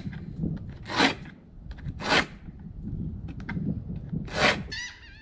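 A 12-inch Dexter knife blade drawn through a handheld pull-through knife sharpener to sharpen it: three short scraping strokes, the last after a longer pause.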